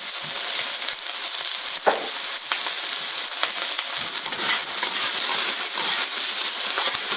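Shrimp and diced onion sizzling in hot oil in a carbon steel wok, with a metal spatula scraping and clicking against the wok as they are stir-fried.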